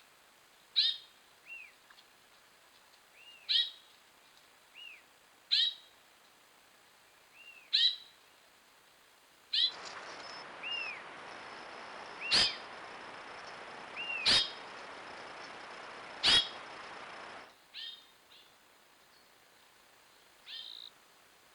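A bird call repeating about every two seconds: a short, sharp falling note followed by a softer arched note. In the middle a stretch of steady hiss comes in, with three sharp clicks about two seconds apart, and then drops away.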